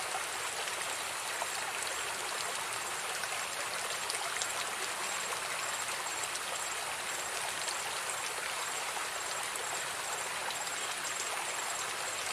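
Steady rushing of water flowing along a small ditch.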